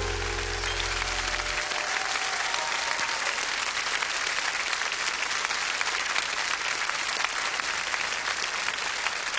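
Studio audience applauding, with the band's last held chord ringing under it for the first second and a half before it stops.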